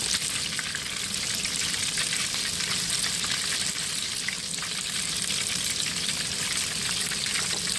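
Hush puppies and catfish deep-frying in hot peanut oil in a deep fryer: a steady sizzle with many fine crackles.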